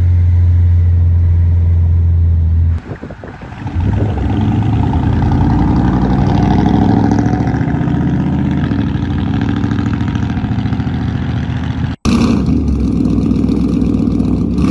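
Loud truck exhaust. A steady low drone for the first few seconds, a short dip, then a rough, rapidly pulsing exhaust note as the truck revs and pulls away. The sound breaks off abruptly about twelve seconds in and picks up again at once.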